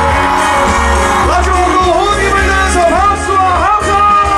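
Male voice singing a trot song live over a loud backing track with a steady bass beat, the melody bending and wavering in vibrato.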